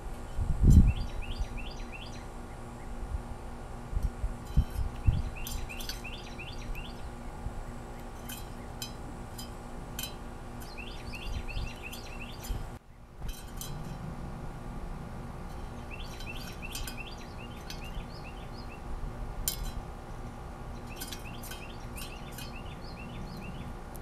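Bird feeder ambience: several short runs of quick bird chirps, with scattered sharp clicks and a few low thumps about a second in and around five seconds.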